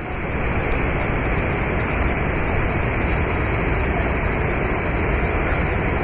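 A waterfall rushing steadily.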